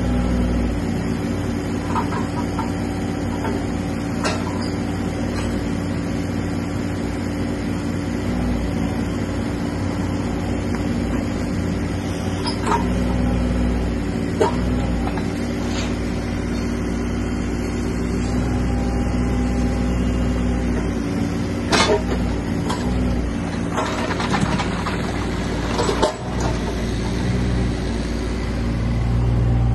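Volvo EC18C mini excavator's diesel engine running steadily while the arm and bucket are worked hydraulically, with a few sharp clanks and knocks. The engine note grows louder near the end as the machine slews.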